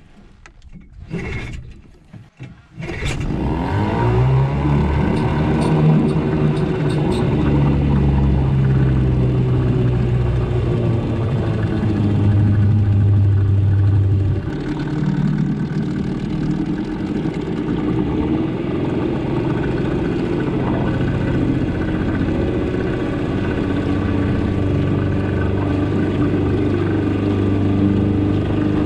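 Small boat's outboard motor starting about three seconds in, revving up, and running steadily as the boat heads out across the lake; its pitch and level drop a little about halfway through, then hold.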